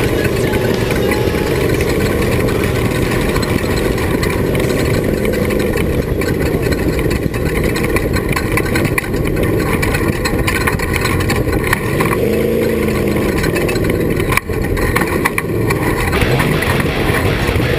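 Off-road race vehicle's engine running hard under a loud, steady rush of noise. Its pitch rises and falls about twelve seconds in and climbs again near the end.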